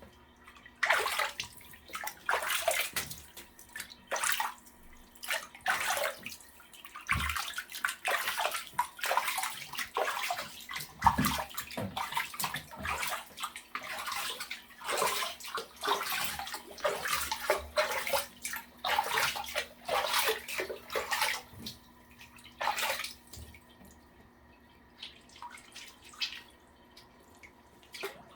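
Water splashing and sloshing in a small tub of bath water as a dog is bathed, in irregular splashes that thin out and grow quieter near the end.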